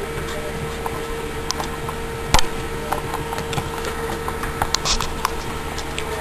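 Small metal clicks and scrapes of a flat screwdriver working a bicycle chain's master-link clip into place, with one sharp click about two and a half seconds in. A steady hum runs underneath.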